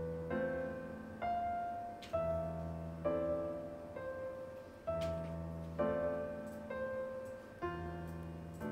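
Slow, gentle background piano music: a struck note about once a second, each fading away, over a low bass note that sounds again every two to three seconds.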